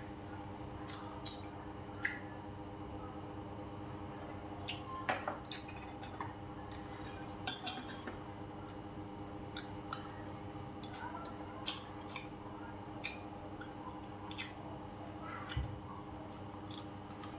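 Metal spoon and chopsticks clinking and scraping against ceramic plates and bowls while eating: scattered light, irregular clicks over a steady faint hum.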